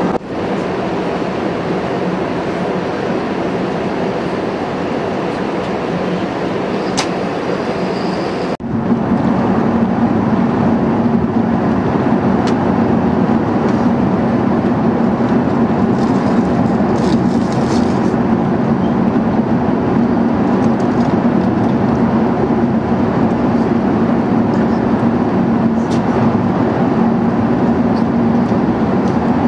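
Steady cabin noise of an Airbus A380 in cruise: a loud rush of airflow and engine drone with a low hum. About eight and a half seconds in it cuts and comes back a little louder.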